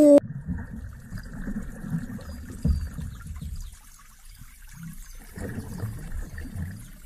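A hooked snakehead thrashing at the water's surface: uneven splashing and sloshing, with a sharper splash a little under three seconds in and a brief lull about four seconds in.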